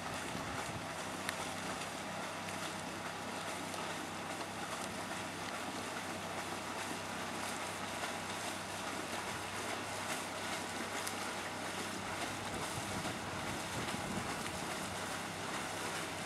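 Steady wind rushing over the microphone, with a low steady hum underneath.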